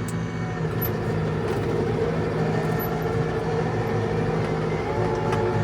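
Tractor engine running steadily while pushing snow with a front plow, its note firming up a little about a second in.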